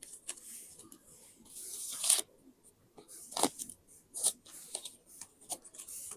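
Paper being handled for a scrapbook: light rustling, then a long hissing sweep of paper that builds and ends sharply about two seconds in, followed by a few sharp clicks and snaps of paper.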